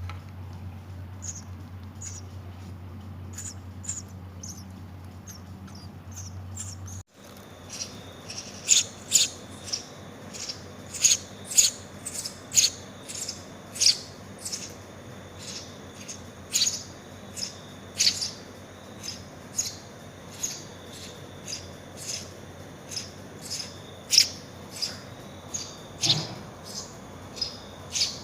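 House sparrow chicks chirping, with short, sharp, high calls repeating about once or twice a second. For the first several seconds the calls are faint over a low steady hum; after a cut they are loud and frequent.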